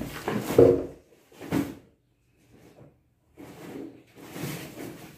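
Handling noises: a series of separate knocks, rubs and scrapes of objects against a wooden tabletop, loudest in the first second.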